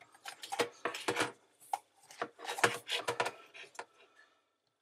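Fingers pressing and working a rubber sump seal into place on a dishwasher's stainless steel sump: an irregular run of clicks, taps and rubbing scrapes that stops about four seconds in.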